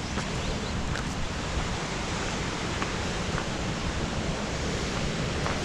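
River Tees water rushing over rocks: a steady, even rush of flowing water.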